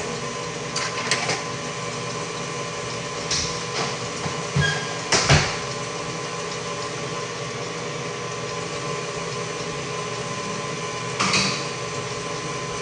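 Stand mixer running with a steady motor hum while mixing batter. Several knocks and clatters come over it in the first half, the loudest about five seconds in, and one more near the end.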